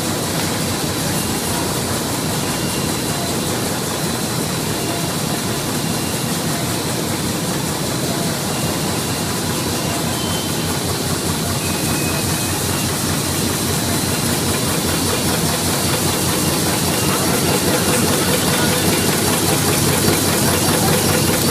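Side-seal plastic bag-making machine running steadily: a dense, even mechanical noise with hiss, getting a little louder near the end.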